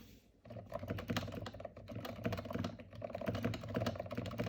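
Fast typing on an Akko 3068B mechanical keyboard fitted with Gateron Silent Black Ink silent switches: a dense run of quiet, damped keystrokes, broken by a brief pause just after the start.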